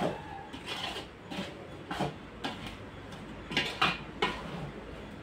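Metal ladle scraping and knocking against a large metal cooking pot as food is stirred, in repeated uneven strokes that are loudest a little past halfway.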